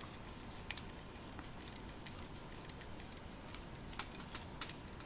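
Faint, scattered light clicks and taps of small plastic and metal parts being handled during assembly of a radio-controlled car chassis, a couple near the start and a couple near the end.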